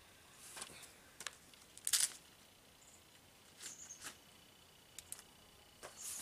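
Scattered short clicks and scrapes of hand tools and metal fittings being worked under a pickup truck during a fuel filter change, the loudest about two seconds in.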